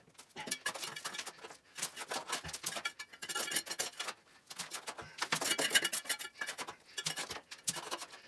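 Small hand trowel digging and scraping in packed soil and rubble: an irregular run of sharp clicks and scrapes in short clusters, with brief pauses between them.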